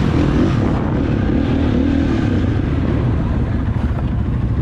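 Dirt bike engine running steadily, its pitch wavering slightly.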